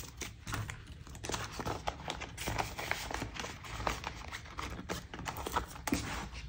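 Handling of a plastic ring binder and its laminated tracker pages: scattered light clicks, taps and rustles of paper and plastic, over a low steady rumble.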